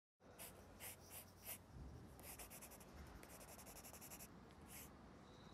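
Faint scratching of sketching strokes on paper: a few separate strokes, then about two seconds of rapid back-and-forth scribbling, then one more stroke near the end.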